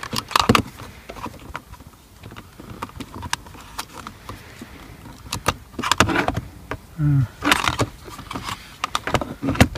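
Scattered handling clicks, knocks and rattles as a memory-saver plug is worked into its socket by hand against plastic trim.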